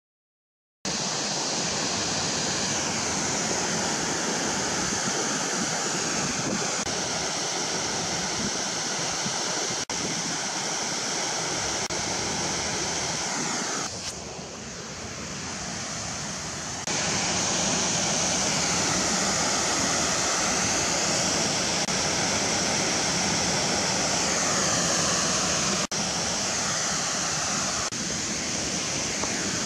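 Loud, steady rush of fast-flowing water. It drops quieter for a few seconds about halfway through, and cuts out briefly twice.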